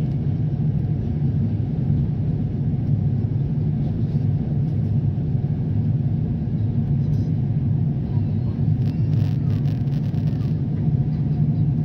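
Steady low rumble of airliner cabin noise, the jet engines and airflow heard from a window seat on the descent.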